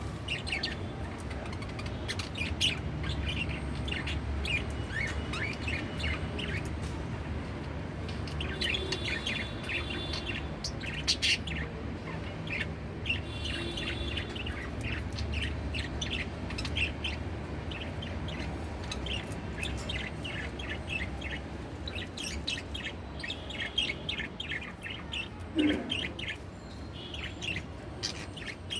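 Pet budgerigar chirping and warbling, with many short, quick chirps and a few longer warbled phrases, over a steady low hum.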